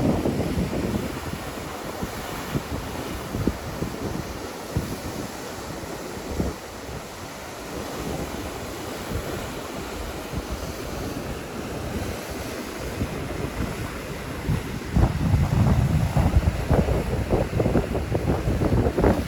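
Surf washing on a beach, with wind buffeting the microphone; the wind rumble grows stronger about three quarters of the way through.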